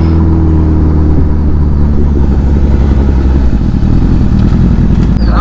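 Honda CBR Fireblade's inline-four engine running while the bike is ridden. Its steady note eases slightly at first, then turns into a rougher, fluttering low rumble from about a second in.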